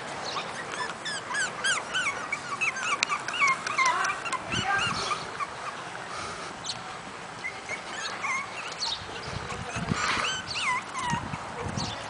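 Several month-old terrier–Chihuahua mix puppies whimpering and yipping in short, high, rising-and-falling cries. The cries come in a busy run through the first five seconds and again about ten seconds in.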